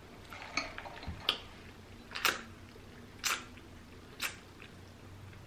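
Close-miked wet mouth clicks, about one a second, from a person chewing and sipping a drink through a straw.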